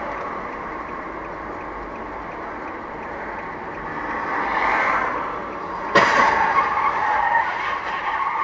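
Road and tyre noise heard from inside a moving car, then about six seconds in a sudden loud crash as a Mercedes sedan and another car collide ahead, followed by a couple of seconds of rough, clattering noise.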